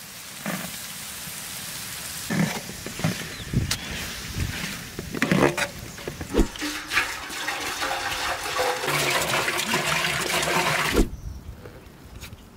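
Chopped garlic and a tomato, carrot and pepper mixture sizzling in a large pan while being stirred with a metal ladle, with scrapes and knocks of the ladle against the pan. The sizzling grows louder toward the end, then cuts off abruptly.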